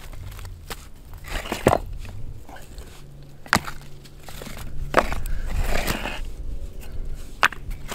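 Dry wood snapping and crunching: about five sharp cracks at uneven intervals, with rustling between them.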